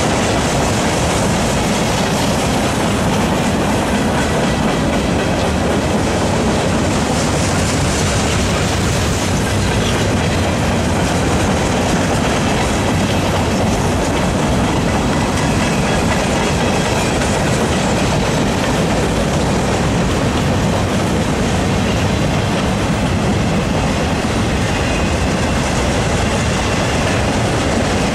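A railroad train rolling past, a steady loud rumble and rattle of its wheels on the rails.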